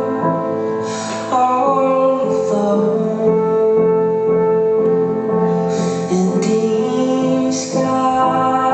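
Live concert music: a high male falsetto voice holding long sung notes over piano and accompanying instruments, with a few sharper accents about a second in and again near the end.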